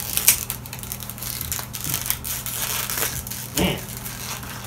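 Plastic lure packaging crackling and crinkling as it is worked open by hand to free a soft swimbait, with a sharp crackle about a third of a second in and another past three and a half seconds.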